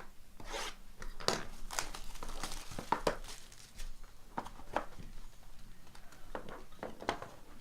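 A trading card pack's wrapper and packaging being torn open and crinkled by hand, a run of irregular sharp crackles and rustles.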